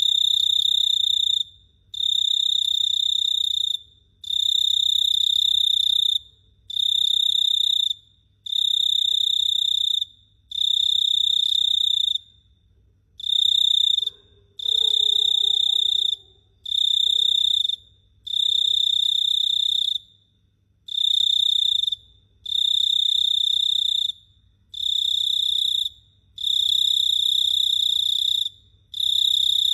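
A cricket singing in loud, high-pitched buzzing trills, each about a second to a second and a half long, separated by short pauses and repeating about every two seconds.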